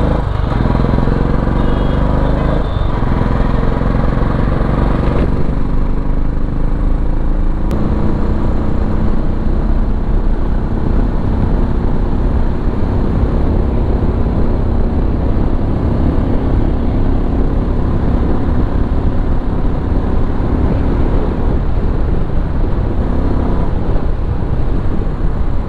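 Royal Enfield Classic 350's single-cylinder engine running through its aftermarket silencer while the bike is ridden. It pulls through several changes in pitch in the first several seconds as the rider accelerates through the gears, then settles to a steady cruise, with wind rush on the microphone.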